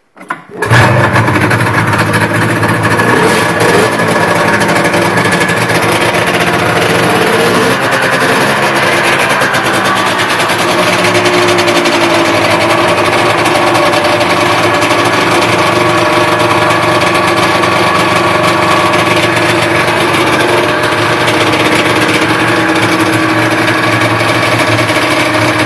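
1976 Rupp Nitro 340 snowmobile's twin-cylinder two-stroke engine catching about half a second in on its first start after a full rebuild, running loudly. Its speed wanders for the first several seconds, then it settles into a steady run.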